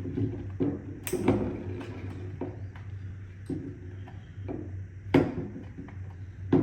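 Plastic clicks and knocks from the robot vacuum's parts being handled during disassembly, with louder knocks about a second in and about five seconds in.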